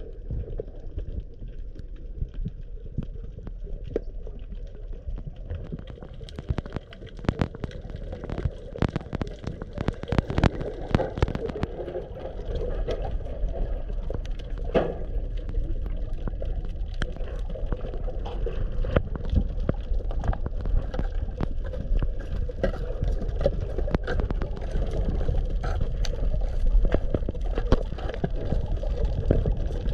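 Underwater ambience: a muffled low rumble of moving water with many scattered sharp clicks and crackles, densest from about six to twelve seconds in.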